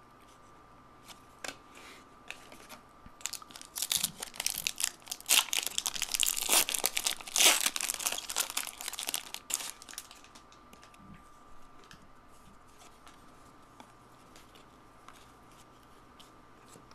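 Plastic-foil trading-card pack wrapper being torn open and crinkled, in dense crackling bursts over several seconds, followed by a few faint ticks.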